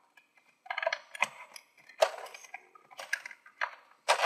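Plastic-and-cardboard earbud display packaging being handled: a string of short crinkling clicks and rustles, several in a row.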